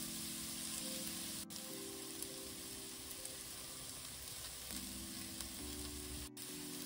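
Diced leeks, carrots, shallot and garlic sizzling steadily in oil in a stainless steel pan as they are pre-cooked. Soft background music with held chords plays underneath.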